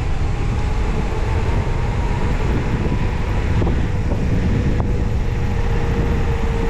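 Wind buffeting a bike-mounted action camera's microphone as a mountain bike rolls fast on asphalt, with a faint steady hum from the tyres.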